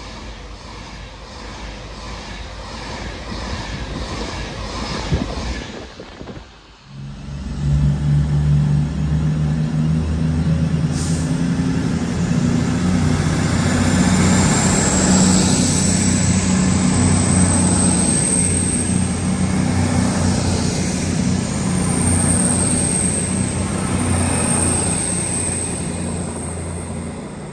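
A passenger train rushes through the station at speed for the first few seconds. Then an Avanti West Coast Class 221 Super Voyager's underfloor diesel engines run steadily as the train moves along the platform, with a high whine rising partway through.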